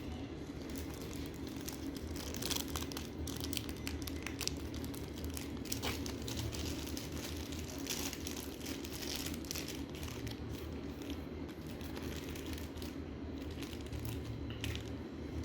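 Plastic packaging being handled and crinkled in irregular crackles, with an occasional tearing sound, over a steady low hum.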